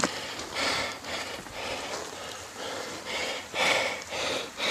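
Breathing close to the microphone: a few irregular, noisy puffs of breath.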